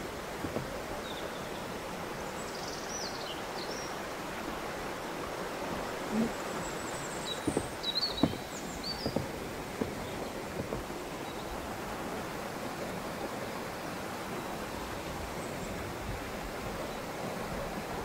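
Glacier-fed mountain stream rushing steadily, with a few soft thuds between about six and ten seconds in and some faint high chirps.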